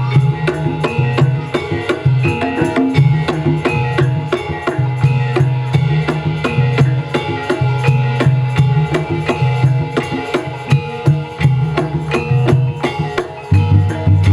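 Javanese gamelan music for a jaranan horse dance, with kendang hand drums playing a quick, steady beat.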